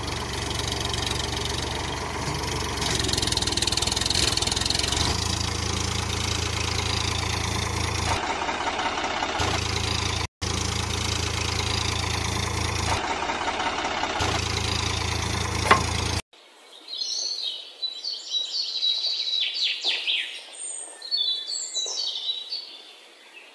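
A tractor engine runs steadily for about sixteen seconds, with a brief break near the middle, then cuts off. After it stops, birds chirp faintly.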